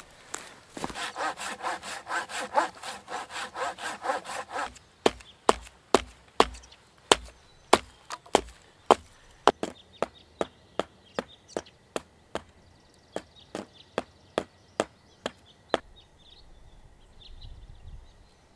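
Folding hand saw cutting through a wooden log in quick rasping strokes for about four seconds, then a steady series of sharp knocks on wood, about two a second, that stops near the end.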